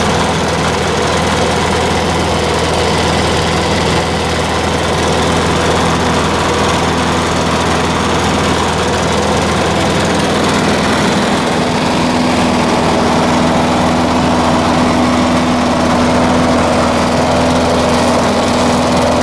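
Craftsman lawnmower's 6.75 HP Tecumseh single-cylinder four-stroke engine running steadily after a cold start in sub-freezing weather. Its note shifts slightly higher about two-thirds of the way through.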